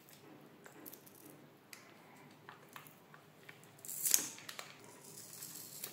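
Flat metal pry blade scraping between an RC speed controller and its plastic mount, working it loose from the adhesive tape, with small clicks and soft scratching and a louder scrape about four seconds in.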